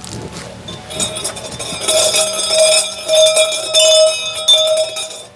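Shinto shrine suzu, a round brass rattle bell, shaken by pulling its hanging rope: it jangles and rings over and over from about a second in, stopping just before the end.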